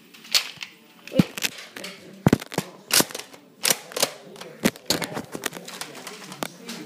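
Nerf dart blasters being primed and fired repeatedly: a string of sharp plastic clacks, about a dozen, irregularly spaced.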